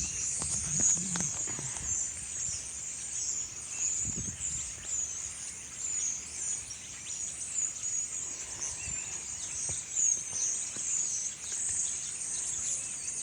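A large flock of birds calling all at once: a continuous chatter of many overlapping high chirps and squeaks.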